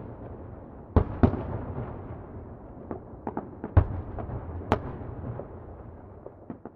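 Distant fireworks going off: an irregular string of sharp bangs, with a low rolling rumble of echoes between them. The loudest bangs come around the middle.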